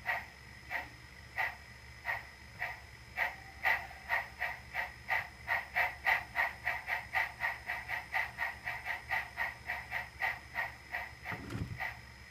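SoundTraxx Tsunami sound decoder in an Sn3 brass K-27 model steam locomotive playing steam exhaust chuffs through its small speaker. The chuffs start slow at about one and a half a second, quicken to about four a second as the engine speeds up, then slow again near the end.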